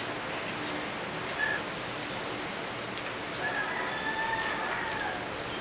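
Paper-and-foil butter wrapper crinkling as it is peeled open, over a steady rain-like hiss. A faint wavering high tone runs from about three and a half to five seconds in.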